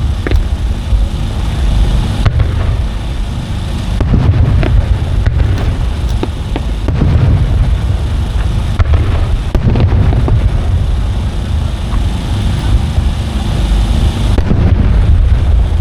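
Aerial firework shells bursting in quick succession: deep booms that roll on into one another, with many sharp cracks scattered among them.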